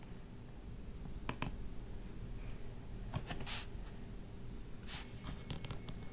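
Microsoft Bluetooth mouse clicking a few times, one click a quick press-and-release pair, with a couple of brief rustles in between, over a faint steady hum.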